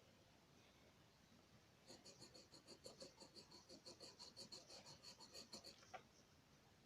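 Quick back-and-forth strokes of a drawing tool scratching on paper, about five or six a second, as in shading, for about four seconds. A single click follows just after the strokes stop.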